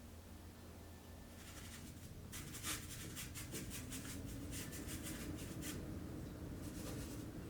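Rapid scratching or scraping strokes of a hand tool worked across a surface, in a long run from about a second in and a shorter run near the end, over a low steady hum.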